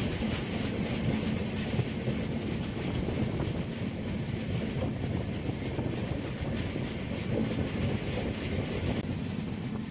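Passenger train coaches running along the track, heard from an open coach door: a steady rumble of wheels and rails, with a faint thin high whine partway through as the train takes a curve.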